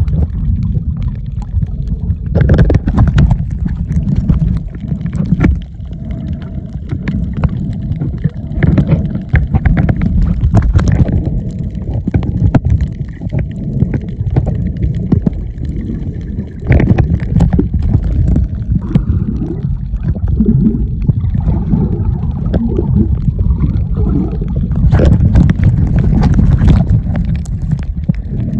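Muffled underwater rumble of water moving around a camera held below the surface while snorkeling, with several louder bursts of crackling spread through it.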